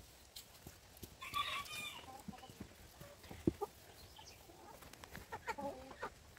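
Chickens clucking, with a louder call about a second in and a cluster of short clucks near the end. A single sharp knock sounds about halfway through.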